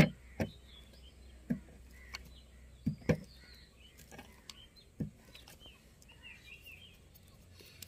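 Albendazole tablets being crushed to powder with a metal padlock on paper over wooden boards: a few scattered knocks and crunches, a sharp one at the very start and another about three seconds in. Faint bird chirps in the background.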